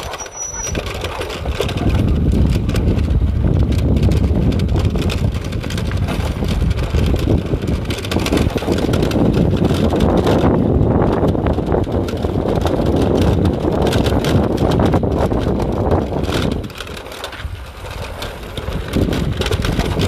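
A vehicle's engine running as it drives along a rough dirt track, with frequent knocks and jolts from the bumpy surface. It eases off and goes quieter for a couple of seconds near the end.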